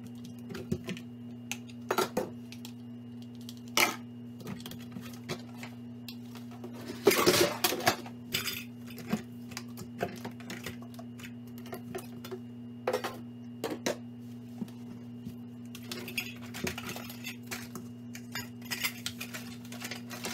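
Plastic food-storage containers, lids and some metal cookware clattering and knocking as they are pulled out of a kitchen cabinet and set down, in irregular bursts with a louder clatter about seven seconds in. A steady low hum runs underneath.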